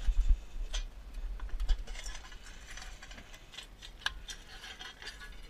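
Goats eating feed from a stainless steel bowl: crunching and small clicks and rattles of feed and teeth against the metal, with a few low thumps in the first two seconds.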